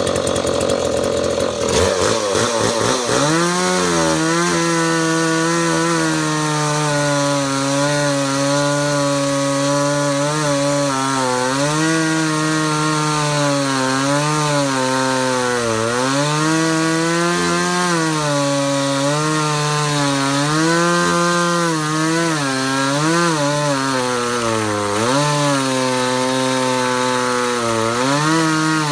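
Freshly rebuilt Stihl 019T two-stroke top-handle chainsaw cutting wood at full throttle. Its engine note drops each time the chain bites into the cut and climbs back between cuts, again and again.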